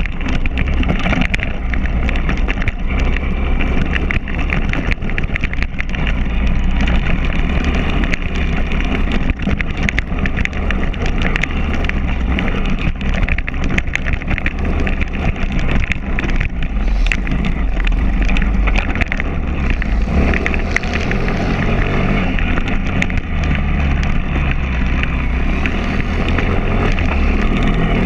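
Pit bike's small single-cylinder engine running hard while riding a dirt track, with wind buffeting the bike-mounted microphone and frequent short knocks and rattles throughout.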